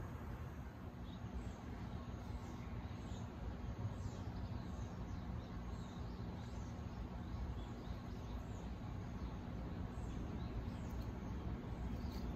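Small birds chirping over and over in short, high, falling notes, over a steady low outdoor rumble.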